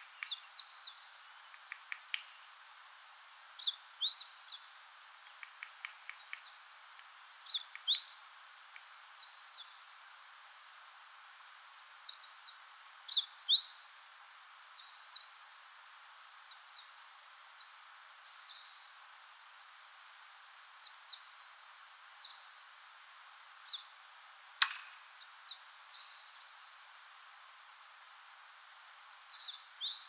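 Wild birds calling in a wood: many short, high chirps and twittering notes scattered throughout, some in quick runs of ticks, with one sharp click about three-quarters of the way through. A faint steady high hiss lies underneath.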